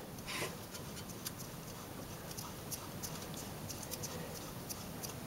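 Faint scratching and a few light ticks as a new spark plug is turned by hand into the cylinder head with a piece of fuel hose, over a low steady hum.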